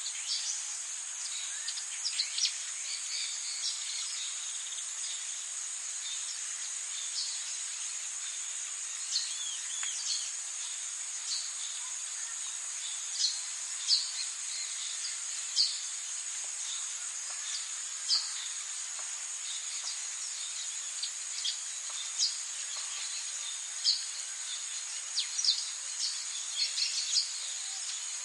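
Forest ambience: a steady, high-pitched drone of insects, with short bird chirps scattered irregularly throughout.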